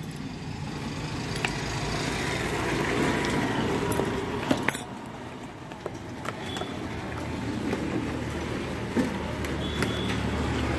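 A nearby motor vehicle engine running, its low rumble swelling and easing twice, with a few short clicks and rustles of a cardboard box being opened by hand.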